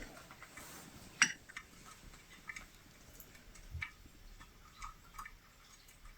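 Faint, scattered small clicks and light rustles of latch hooking, with one sharper click about a second in: the metal hook and its latch working yarn through the canvas.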